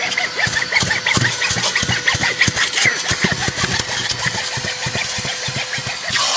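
Vacuum cleaner running with a steady whine while its hose nozzle is dragged and knocked over a fabric car seat, giving a string of scraping taps and rubs.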